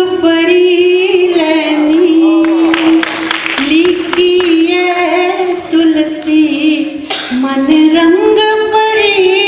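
A woman singing a poem into a microphone without accompaniment, holding long notes with a wavering pitch that steps up and down between phrases.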